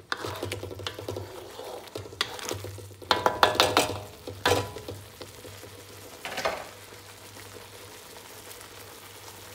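A spatula stirring and scraping thick meat sauce with sliced sausage around a wide pan, the strokes loudest about three to four seconds in, while the sauce sizzles steadily. The stirring stops about halfway through, with one more stroke a little later, leaving the steady sizzle.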